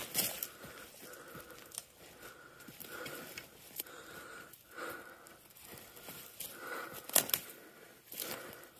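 Footsteps crunching and brushing through dry grass, with hard, wheezy breathing in a repeating rhythm and a few sharper crackles.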